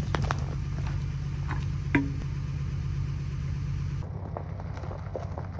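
Pickup truck engine idling with a steady low drone, with one sharp click about two seconds in. The drone drops a little about four seconds in.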